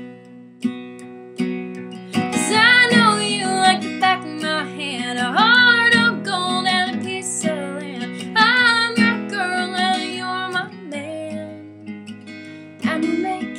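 Acoustic guitar strummed steadily, with a woman singing over it from about two seconds in until about eleven seconds in.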